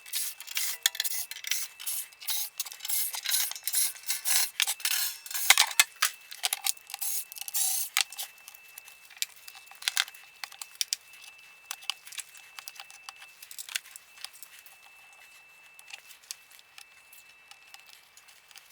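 Fast-forwarded audio of screws being taken out and the metal bottom cover of a stereo receiver being handled: a rapid, irregular jumble of clicks and small metallic rattles, thickest in the first half, with a faint steady high tone under it.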